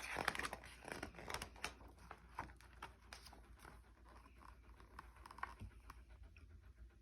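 Pages of a paper picture book being turned: a soft rustle of paper with light clicks, strongest in the first second or so, then a few faint ticks of handling.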